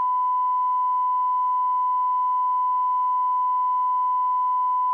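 Steady 1 kHz sine test tone, a broadcast line-up tone on the feed, held at one pitch and one level.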